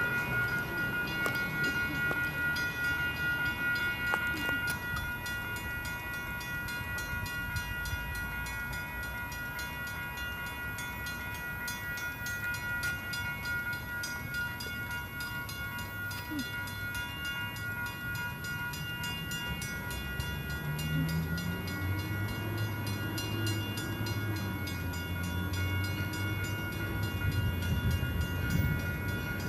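A train running, with a steady high whine over a low rumble; the rumble grows louder about three-quarters of the way through.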